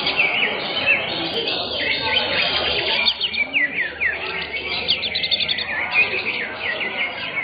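Many caged greater green leafbirds (cucak hijau) singing at once in a contest: a dense chorus of rapid, overlapping chirps and quick whistled sweeps, over a low murmur of voices.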